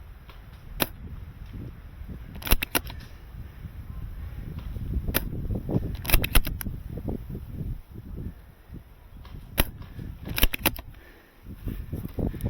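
Airsoft guns firing: sharp cracking shots, some single and some in quick runs of three or four, against a constant low rumble of strong wind buffeting the microphone.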